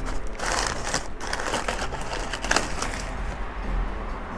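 Packing paper rustling and crinkling as a plant is unwrapped and lifted out of a cardboard box, busiest for about the first three seconds and then quieter.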